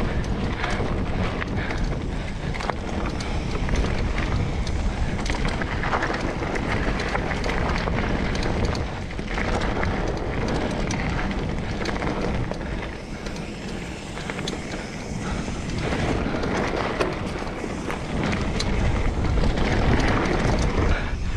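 Mountain bike rolling fast along a dirt trail: wind rushing over the microphone and tyres running over packed dirt and leaves, with a constant patter of small clicks and rattles from the bike over bumps.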